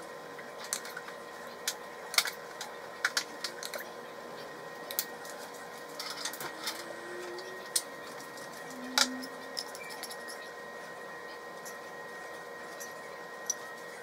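Scattered sharp clicks and light taps of a ladle and other kitchen utensils against a ceramic baking dish, over a steady electrical hum. The loudest taps come about two, three and nine seconds in.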